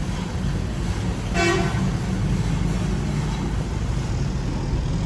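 A short single horn toot about one and a half seconds in, over a steady low engine or machine rumble.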